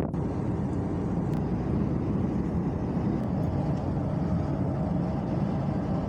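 Steady road and engine noise of a vehicle driving along, an even rumble with no change in pace.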